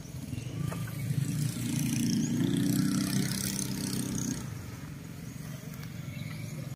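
A motor vehicle's engine running, growing louder over the first two seconds and fading away about four seconds in.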